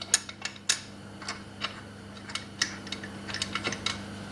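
Irregular small metallic clicks and clinks as the snowmobile's secondary clutch bolt and washers are handled and the bolt is fitted back in reversed, over a faint steady hum.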